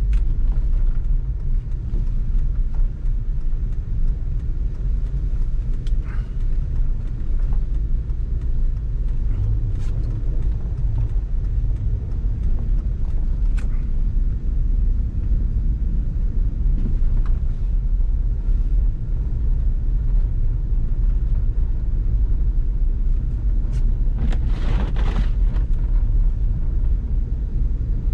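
Steady low rumble of a car's engine and tyres heard from inside the cabin while driving on snow-covered streets, with a few light clicks and a brief louder rush of hiss near the end.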